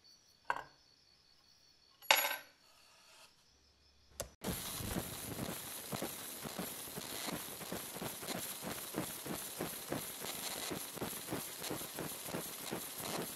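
Two short knocks, the louder about two seconds in, then from about four seconds in a laser engraver firing on the steel hammer head: a steady crackling hiss full of rapid ticks as the beam burns into the metal.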